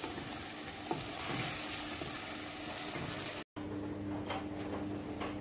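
Onion paste frying in hot oil in a pot, sizzling steadily while a wooden spoon stirs and scrapes through it. The sizzle drops out briefly about three and a half seconds in and comes back softer.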